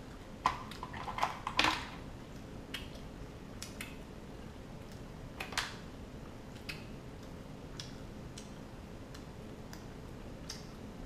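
Scattered clicks and small cracks of steamed king crab shell being broken and picked apart by hand and with a small fork, with light taps of a utensil against the tray and plates. A cluster of louder cracks comes in the first two seconds and another about five and a half seconds in.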